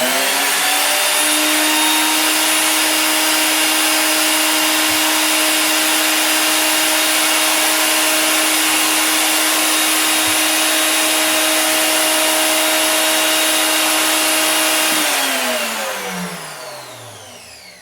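A 1 3/4 HP router in a router table switched on: its motor spins up with a rising whine, runs steadily at full speed for about fifteen seconds, then is switched off and winds down with a falling whine.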